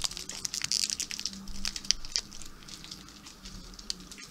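Crinkly foil candy wrappers being twisted open by hand: a run of sharp, irregular crackles, thicker in the first couple of seconds and sparser after.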